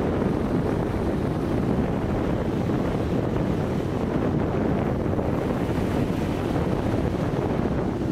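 Wind blowing on the microphone as a steady low noise, over small waves breaking and washing up on a sandy shore.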